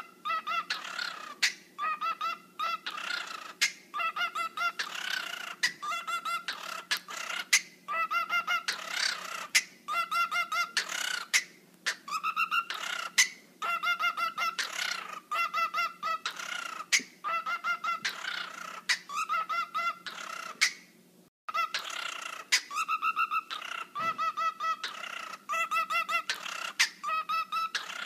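A bird giving rapid, pulsing, buzzy calls in short repeated phrases of about a second each, with sharp clicks between them. The wobbling rhythm sounds like dubstep.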